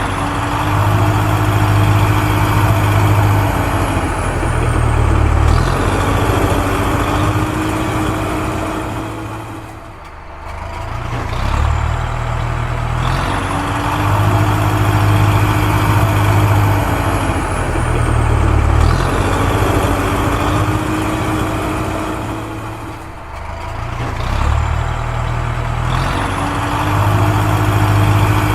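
Recorded heavy diesel engine sound effect, like an excavator or truck working, playing as a loop: a steady low drone with a whine that rises and falls, the same cycle repeating about every thirteen seconds, with a brief drop in level between cycles.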